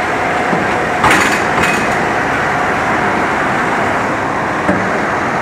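City street ambience: a steady wash of road traffic noise, with two short clatters about a second in and a softer knock near the end.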